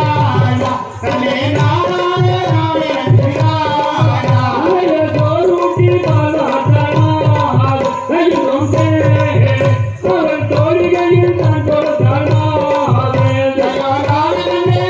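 Valli kummi folk song: singing over a steady, repeating drum beat.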